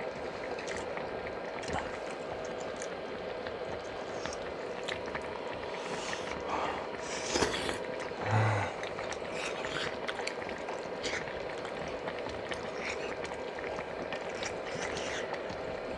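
Pot of dumpling soup (manduguk) at a rolling boil: steady bubbling with scattered small pops, and a couple of louder sounds about halfway through.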